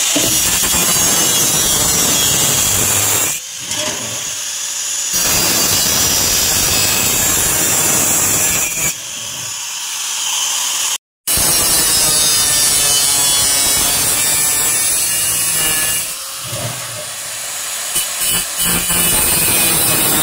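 Angle grinder cutting a sheet-metal cable tray, a loud continuous grinding noise that eases off in three short lulls and picks up again.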